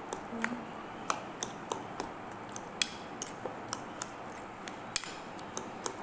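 Metal fork clinking against a bowl while mashing soft boiled eggplant: irregular sharp taps, about two or three a second.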